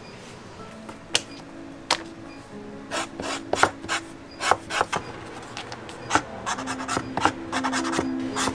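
Hand tool scraping along the edge of a leather boot-upper piece in short, irregular strokes, which come thicker and faster from about three seconds in.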